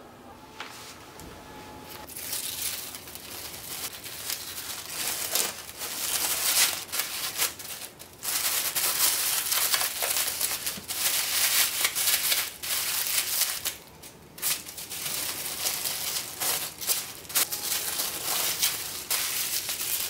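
Irregular crinkling and rustling of paper or plastic wrapping being handled and folded, in uneven surges.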